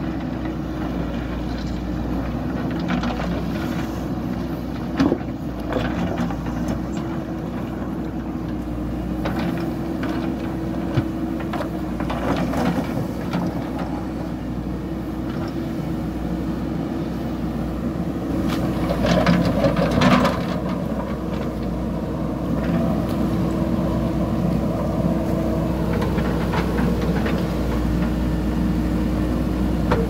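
JCB backhoe loader's diesel engine running steadily under work, with scattered knocks and clanks as it digs; the loudest cluster of knocks comes about twenty seconds in.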